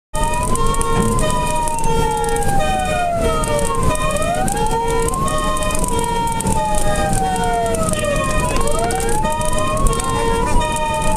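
Fire engine siren wailing on an emergency run: it climbs quickly and falls slowly in pitch about every four and a half seconds. A second tone pulses on and off in short repeated beeps over it, with the truck's engine and road noise rumbling underneath.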